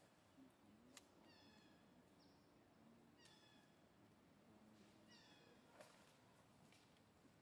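Faint, high-pitched mewing cries of a newborn macaque: three drawn-out calls about two seconds apart, each sliding slightly down in pitch, with a shorter squeak between the first two. Two soft clicks fall about a second in and near the end.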